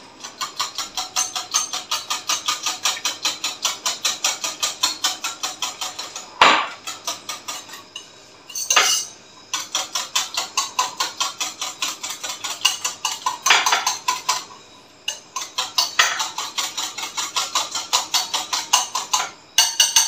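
A spoon beating yogurt in a bowl, clicking against the side in a fast, even rhythm of about four to five strokes a second, with a few louder knocks and two short pauses. This is the yogurt being whisked smooth and creamy for raita.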